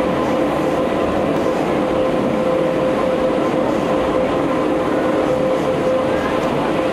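Electric rack railcar of the Pilatus Railway climbing on its cog rack: a steady whine from the drive and gearing over a dense, even rumble of running noise.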